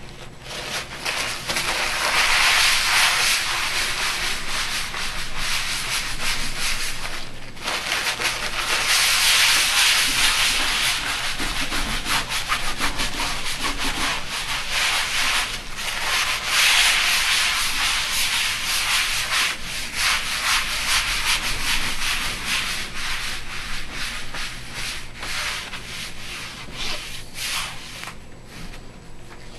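Cloth rag scrubbed back and forth over a glass grinding slab, wiping off residue of pigment paste ground in linseed oil, with a short pause about seven seconds in.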